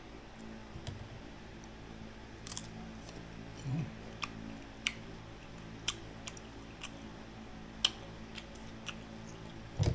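Crisp green mango slices being bitten and chewed close to the microphone: short, sharp crunches about once a second, with a few duller thuds. A steady low hum runs underneath.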